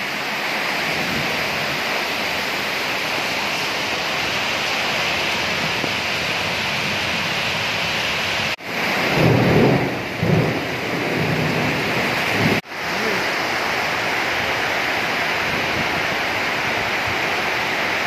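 Heavy rainstorm: a dense, steady hiss of rain with water pouring off a roof edge. A low rumble of thunder swells about nine seconds in and fades by about eleven.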